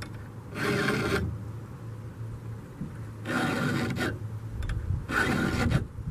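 Round chainsaw file rasping across the cutters of a rip chain in three strokes, each about half a second long and roughly two seconds apart, over a low steady hum.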